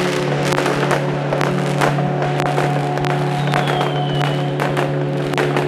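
Fireworks popping and crackling many times in quick succession over music with long held tones.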